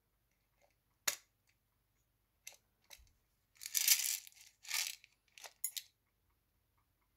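Sweetener tablet dispenser clicking as tablets are dropped one by one into a stainless-steel travel mug of coffee. There is a sharp click about a second in, a few small ticks, and a short soft hissing rustle midway.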